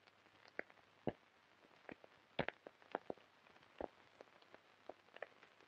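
Near silence broken by faint, irregular clicks and pops, about a dozen of them: surface crackle on an old 1930s film soundtrack.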